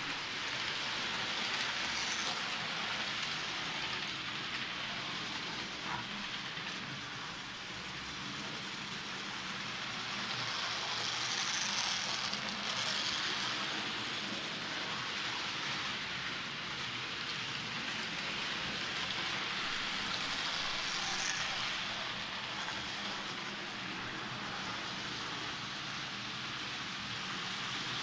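Model trains running on a layout: a steady whir and rattle of small electric motors and metal wheels on the track, swelling a little now and then.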